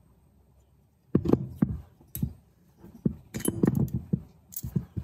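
Irregular metallic clinks and knocks from small locking pliers and an aluminium engine cylinder head being handled and set down on a wooden bench, starting about a second in.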